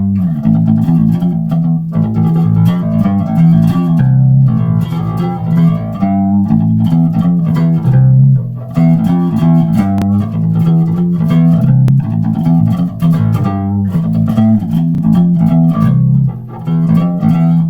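Electric bass guitar played continuously through a flanger pedal, a run of picked notes with a washy, jet-like sweep on the tone. The playing stops abruptly at the end.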